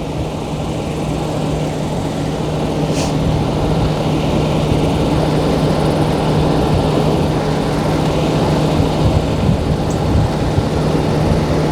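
Vehicle engine running steadily, heard from inside the cab with the air conditioning blowing; a constant low hum under the fan noise, with a faint click about three seconds in.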